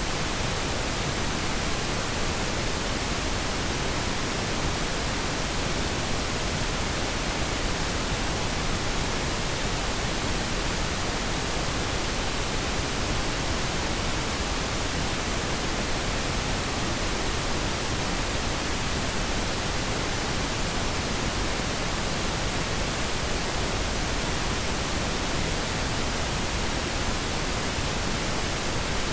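Pink noise test signal for audio calibration: a steady, unchanging hiss spread evenly across the whole frequency range.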